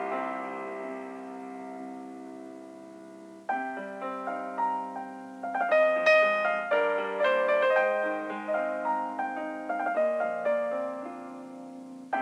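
Background piano music: a chord that slowly fades, then new chords from about three and a half seconds in and a busier run of notes in the second half.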